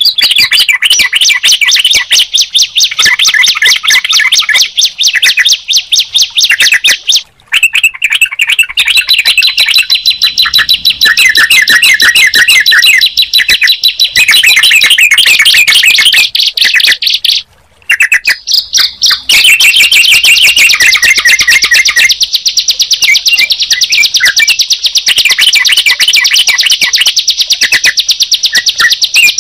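Bar-winged prinia (ciblek) and yellow-vented bulbul (trucukan) songs heard together: a dense, fast run of high, repeated chirps that cuts out briefly twice.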